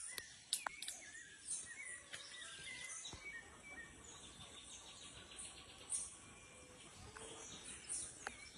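Faint outdoor ambience: small birds chirping now and then over a soft hiss of insects, with a stretch of fast, even insect-like pulsing.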